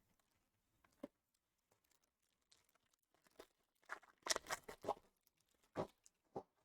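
Faint handling noises of trading-card packaging and cards: a single click about a second in, then a short cluster of rustles and taps about four seconds in, and two more taps near the end.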